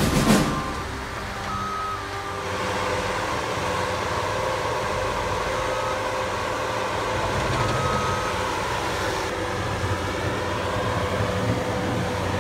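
Bobcat skid-steer loader's engine running steadily as it works, pushing snow with its bucket, with a few short high beeps now and then.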